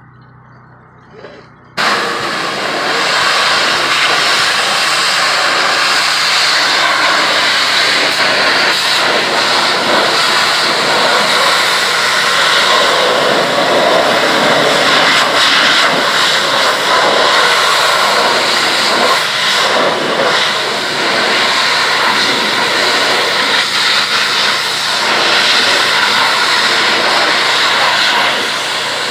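A pressure washer's high-pressure water jet starts abruptly about two seconds in, then sprays with a loud, steady hiss.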